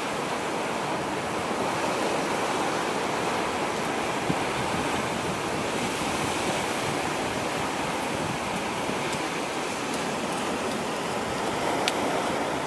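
Steady rushing noise of sea surf breaking on the shore, with two brief clicks, one about four seconds in and one near the end.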